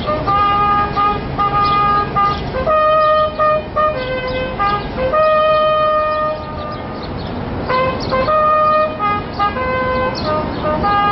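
A single wind instrument, likely brass, playing a slow ceremonial melody of held notes, each lasting from about half a second to a couple of seconds, as the flag is lowered under salute.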